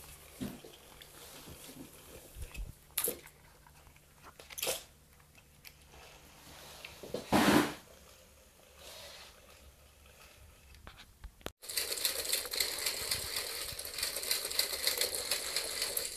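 Lego Technic creatures driven by a small electric motor, their plastic gears and parts clicking and scraping over a wooden floor: faint scattered clicks with one louder scraping burst about halfway, then a steady, fast clatter over the last few seconds as a legged walker moves.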